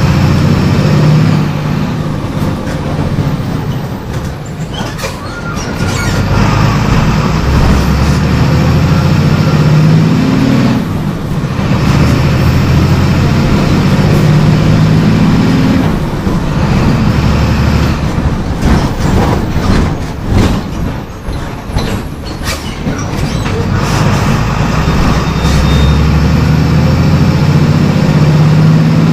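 MWM 6.12 TCAE six-cylinder turbodiesel of a Volksbus 17.210 EOD bus pulling under load, its note rising several times and dropping away in between. Clicks and knocks come through around the middle.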